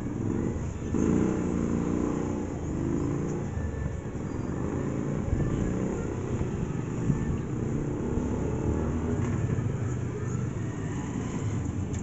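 Low, continuous rumble of road traffic, with a vehicle engine running close by.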